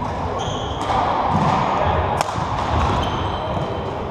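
Badminton play on a wooden hall floor: shoes squeaking briefly on the court twice, and a sharp racket strike on the shuttlecock about two seconds in, over the hall's steady background noise.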